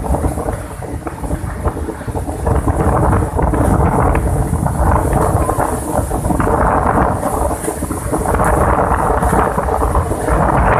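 Cyclone-force wind buffeting the microphone in uneven, rumbling gusts over heavy surf breaking on the shore. The gusts grow louder about three seconds in.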